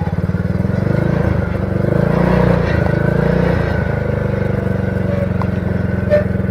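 Honda 50 cc single-cylinder four-stroke engine on a homemade motorized bicycle, running steadily under way. It gets a little louder about two seconds in and eases back after three and a half.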